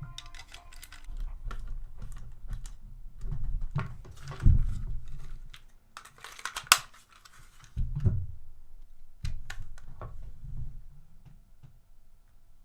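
Handling noise of a plastic game controller and small tools on a workbench: irregular light clicks and knocks, with a couple of heavier thumps and one sharp click about halfway through.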